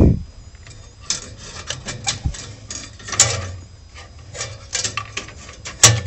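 Handling noise from the thermocouple lead being worked free of a gas boiler's burner compartment: irregular clicks, taps and rubbing of metal, with a sharp click near the end.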